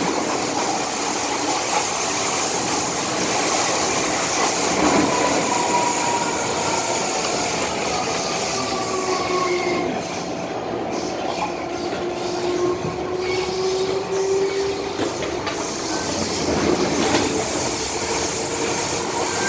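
MTR M-Train electric multiple unit running at speed, heard from inside the carriage: a steady rumble of wheels on rail, with thin wheel squeal drifting slowly in pitch through the middle.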